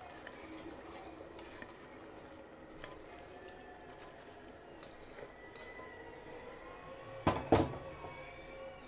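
Broth poured from a pot into a simmering pan of oxtail stew: a steady sound of pouring and bubbling liquid as a plastic spatula stirs. Two sharp knocks of the spatula against the pan near the end.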